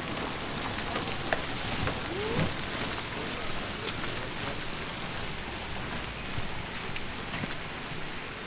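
Wet snow falling just above freezing, a steady rain-like hiss of flakes and drops landing, with scattered small ticks.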